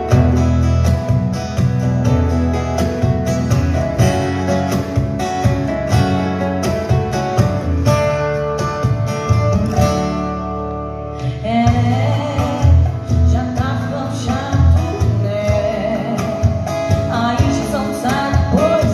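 Acoustic guitar strummed alone as an intro, then a woman's voice comes in singing a sertanejo song into a microphone over the guitar, about eleven seconds in.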